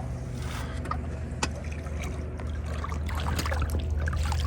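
A steady low hum under light water sounds and a few sharp clicks while a hooked trout is played on a fly rod.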